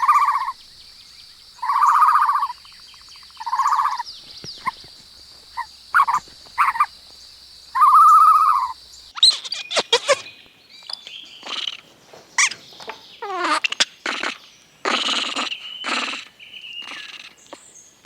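Farm animal calls: a run of short repeated calls, about one every second or two, over a steady high background drone, then, after a sudden change about halfway, a busier mix of different calls and clicks.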